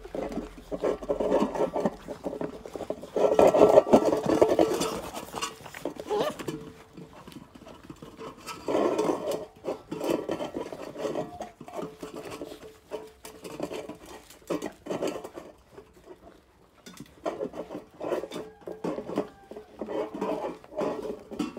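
A litter of Belgian Malinois puppies eating together from one metal bowl: many mouths lapping, smacking and chewing at once, with the bowl clinking. The noise comes in surges, loudest a few seconds in.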